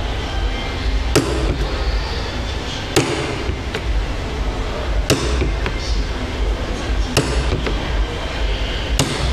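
Shoemaker's hammer striking shoe material on a work board: about five sharp blows roughly two seconds apart, with a few lighter taps between, over a steady low rumble.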